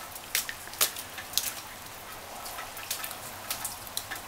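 Steady rain falling, with sharp taps of drops landing close by at irregular intervals, about a dozen in a few seconds.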